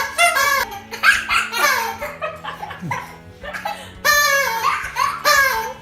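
Young children laughing and squealing in short, high-pitched bursts over background music with steady bass notes.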